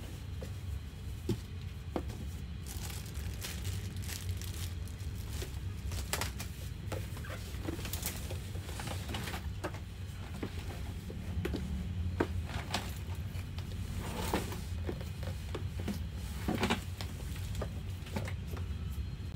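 Rustling and crinkling of a white protective wrapping sheet as it is pulled off a ride-on toy car in its cardboard box, in short irregular rustles. A steady low hum runs underneath.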